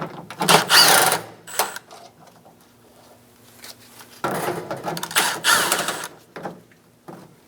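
Power driver with a Phillips bit backing out two screws: two short whirring runs, the first about a second long, the second about two seconds a few seconds later, with the motor pitch gliding as it runs.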